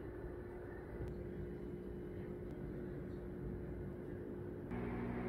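A steady low hum. A second, slightly louder hum with several steady tones joins near the end.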